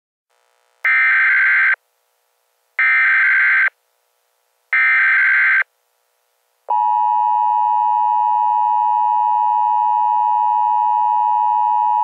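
Emergency Alert System tones: three short blasts of buzzing digital data, the SAME header that encodes the alert, each just under a second long and about two seconds apart. Then, about seven seconds in, the steady two-tone EAS attention signal starts and holds.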